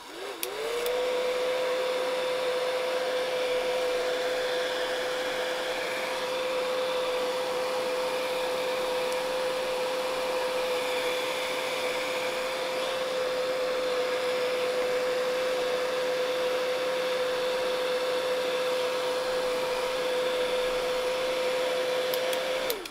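Heat gun on its high setting running: its fan motor spins up in under a second to a steady whine over the rush of blown hot air, then switches off just before the end.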